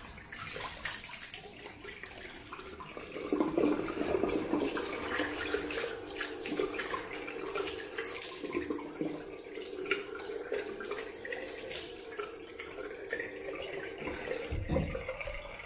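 Water running from a tap into a bathroom sink, with repeated splashing as water is scooped onto the face to rinse off after a shave.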